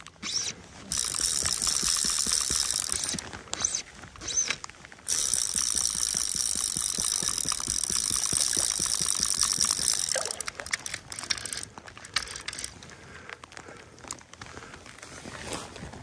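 Fly reel's click-and-pawl drag ratcheting in rapid clicks while a hooked fish is played, in two runs: a short one about a second in and a longer one from about five to ten seconds in.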